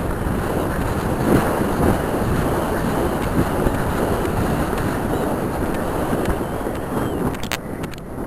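Wind buffeting a helmet-mounted camera's microphone as a horse gallops over grass, a steady loud rumble with the gallop underneath. A couple of sharp clicks come near the end.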